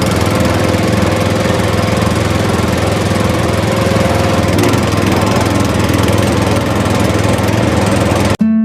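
An engine running steadily at constant speed. It cuts off abruptly near the end, and strummed acoustic guitar music begins.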